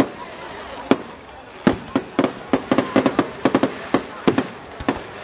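Aerial firework shells bursting: a single sharp bang about a second in, then a rapid, irregular string of bangs that stops shortly before the end.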